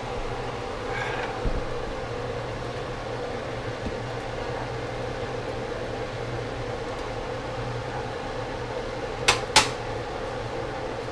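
A steady low hum, broken about nine seconds in by two sharp clinks of cookware on the stovetop, a third of a second apart.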